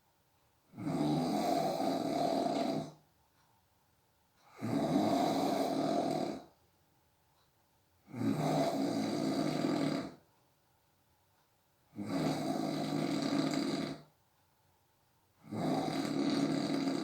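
A person snoring in sleep: five long snores of about two seconds each, repeating every three and a half to four seconds with quiet breaths between.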